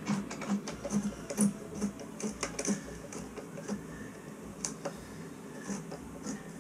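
Hand screwdriver driving a screw through a plastic toilet flange into a concrete floor: a run of irregular small clicks and creaks, two or three a second, as the screw is turned down by hand.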